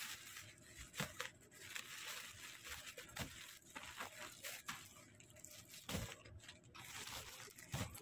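Plastic packaging bags rustling and crinkling as they are handled and opened, with several sharp crackles spread through.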